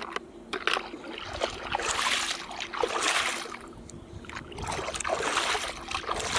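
Water sloshing and splashing in two long swells, with small knocks in between, as toy vehicles are washed.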